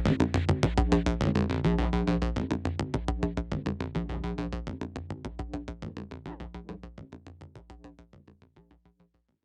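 Electronic outro music with a quick, even synth pulse, fading out and ending just before the end.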